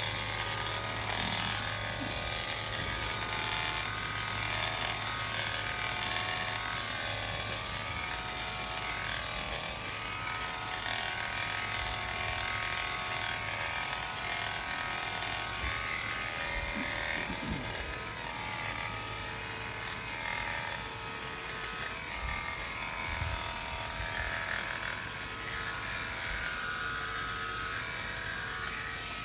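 Premier One electric sheep-shearing clippers running steadily as they cut through a ram's fleece.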